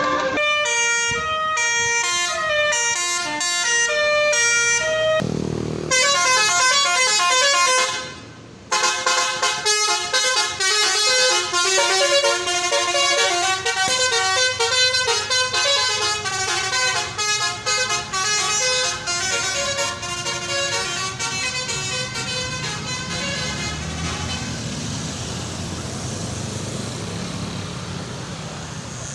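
Basuri 'telolet' multi-tone bus horn playing quick stepping melodies of several tones at once, with a short break about eight seconds in. After about twenty seconds the tune stops and only vehicle and street noise remain, slowly fading.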